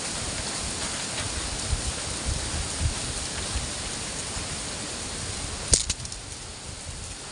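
Strong wind blowing steadily, gusting and buffeting the microphone with low rumbles. A single sharp click or knock comes about three-quarters of the way through.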